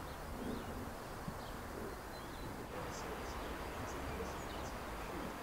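Outdoor ambience: a steady background hiss and rumble with faint, scattered bird chirps.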